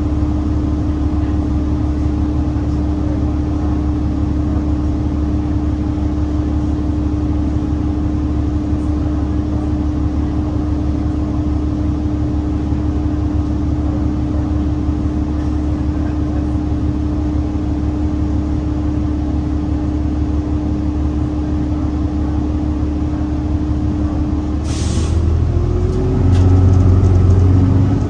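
Interior of a New Flyer Xcelsior XDE60 diesel-electric hybrid articulated bus (Cummins ISL9 engine, Allison H 50 EP hybrid drive) standing still with a steady drivetrain hum and drone. Near the end the air brakes release with a short hiss, and the bus pulls away with a rising whine as it gets louder.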